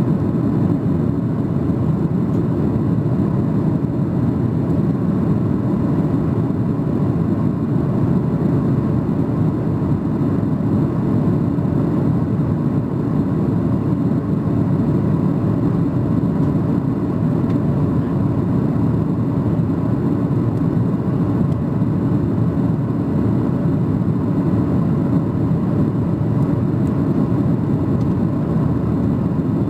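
Steady in-flight cabin noise of a Boeing 737-800: the drone of its CFM56-7B turbofan engines mixed with airflow over the fuselage, heard inside the cabin from a seat over the wing. The sound holds level, with no changes in thrust.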